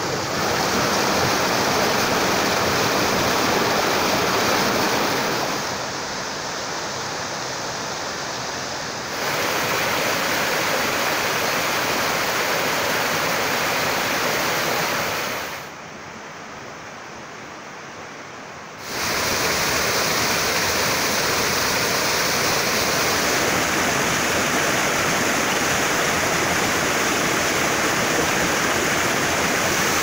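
Rushing water of small waterfalls on a mountain river, a steady even roar. It drops to a quieter stretch for about three seconds just past the middle, then comes back at full level.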